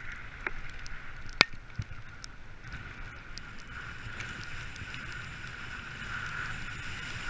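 Dog sled gliding over snow behind two running dogs: a steady rushing noise, with a sharp knock about one and a half seconds in and a few fainter clicks.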